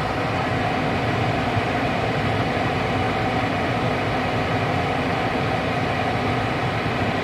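Lennox gas furnace's fan running with a steady whooshing hum while the furnace cycles to relight after dropping its flame, a lost flame signal that the technician traces to a dirty flame sensor.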